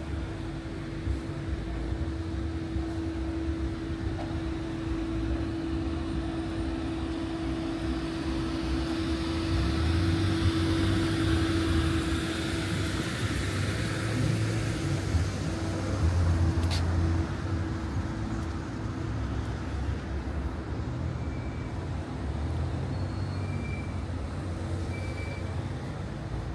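Street traffic: road vehicles running and passing, with a steady low rumble and a steady hum that fades about halfway through. The traffic grows louder for a spell about a third of the way in, and there is one sharp click a little after the middle.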